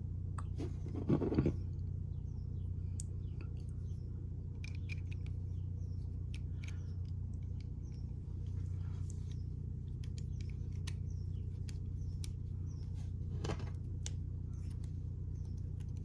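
Scattered small metallic clicks and taps from handling a North American Arms .22 LR mini revolver and its removable cylinder, with a louder rattle about a second in, over a steady low hum.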